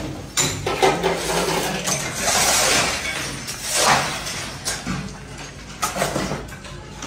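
Broken brick and plaster rubble clinking, knocking and crunching in irregular strikes, with a longer scraping rush of debris about two seconds in.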